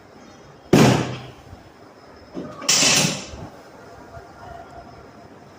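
Two sudden, loud thuds from chiropractic adjustment thrusts: the first sharp, about three-quarters of a second in, the second longer and rushing, near three seconds in.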